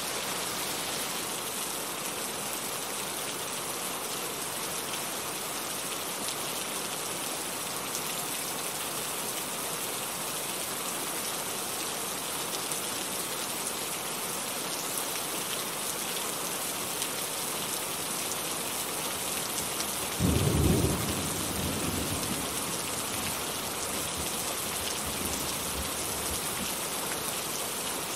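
Heavy rain falling steadily. About twenty seconds in, a short loud burst of thunder, then low rumbling that dies away over a few seconds.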